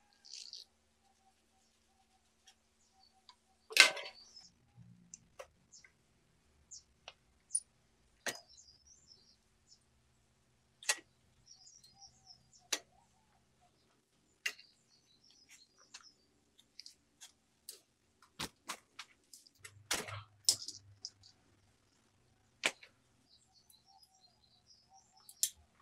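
Scattered metallic clicks and knocks of a mountain bike being taken apart by hand, brake levers and brake cables being worked loose, with a louder clunk about four seconds in and another cluster around twenty seconds. Small birds chirp faintly in the background.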